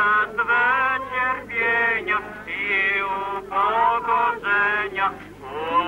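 Religious singing at a funeral, a male voice most prominent, in short sung phrases with brief breaks between them.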